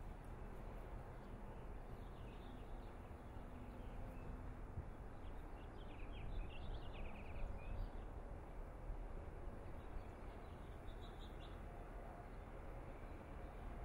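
Small birds chirping in a few short phrases, the busiest about halfway through, over a faint steady low rumble of outdoor background noise.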